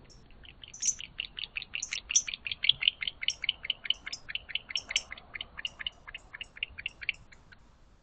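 Barn owl giving a rapid chittering call: a long run of short, sharp chirps, about six a second, lasting about seven seconds.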